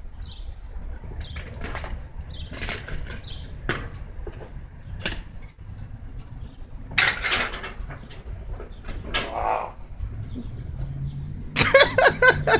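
Someone rummaging through a metal dumpster: irregular knocks, clanks and rustles as scrap is shifted and pulled out, the loudest a rough scrape about seven seconds in.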